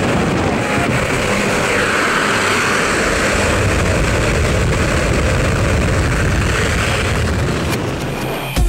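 Loud, steady rush of wind over the microphone together with the drone of a propeller plane's engine, heard at the open door of a skydiving jump plane. Music cuts in at the very end.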